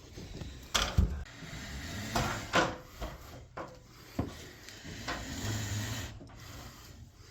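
Irregular clunks, rubbing and scraping of a lifting device as a heavy HVAC unit of about 220 pounds is raised with one hand, with a sharp clunk about a second in.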